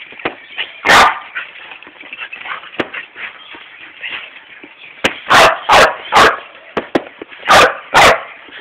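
A dog barking: one bark about a second in, then a quick run of three barks about five seconds in, and two more near the end.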